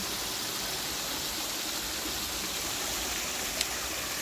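Mountain valley stream running with a steady rush of water, and a single sharp click near the end.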